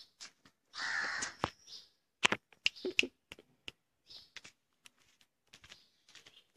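A single harsh animal call about a second in, followed by scattered sharp clicks and knocks.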